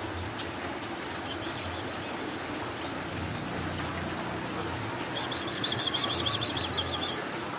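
A small songbird gives a rapid, high chattering trill, about two seconds long, starting a little past the middle, over a steady background hiss.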